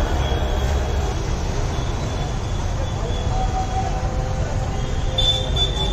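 Steady low rumble of background traffic noise, with faint steady tones above it.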